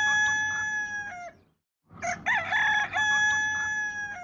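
Rooster crowing: the held end of one cock-a-doodle-doo, then a short gap and a second full crow, each finishing on a long drawn-out note.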